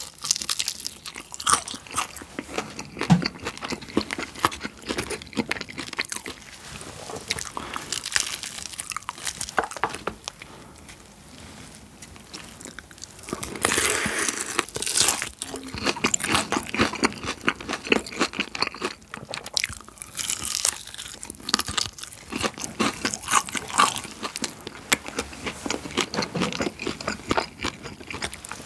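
Crispy battered fried chicken, sauced with garlic, being bitten and chewed close to the microphone: the crust crunches and crackles, with a louder run of crunching about fourteen seconds in.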